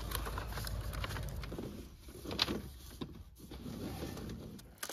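Mini digger running, its low engine hum strongest in the first second and a half, with irregular scraping and a short louder scrape about two and a half seconds in.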